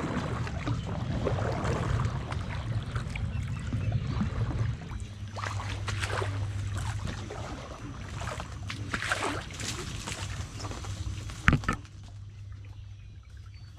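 Paddle strokes dipping and splashing in shallow marsh water as an inflatable paddleboard is paddled along, with cattail stems brushing against it, over a low steady rumble. A sharp knock a little before the end is the loudest sound.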